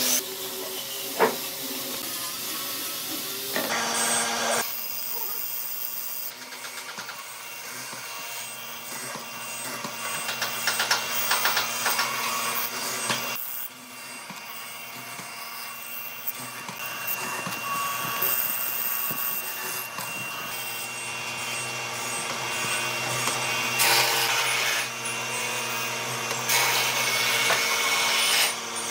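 A few taps and knocks for the first few seconds, then a hollow-chisel mortiser running: its motor hums steadily while the square chisel and bit bore mortises into pine, chewing and scraping through the wood.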